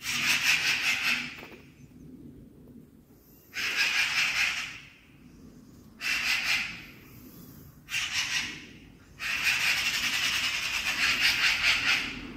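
Magpie giving its rattling chatter, a warning call, in five bursts separated by short pauses, the last and longest lasting about three seconds.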